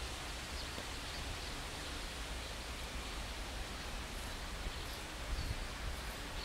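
Outdoor wind noise: a steady hiss with rustling vegetation and uneven low rumbling from wind on the microphone.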